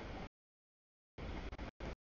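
Freight train of tank cars rolling past, a steady rumbling noise heard only in half-second chunks with dead silence between them: the audio keeps dropping out.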